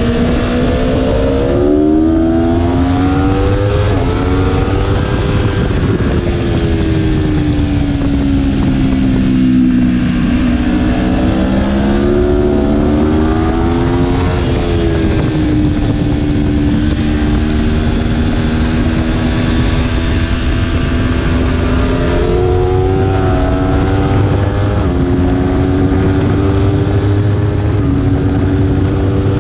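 Aprilia Tuono V4 1100's V4 engine pulling hard under throttle, heard from onboard. Its pitch climbs and drops sharply at several upshifts as it works up through the gears to fifth, with one slower sag and recovery in pitch about a third of the way in.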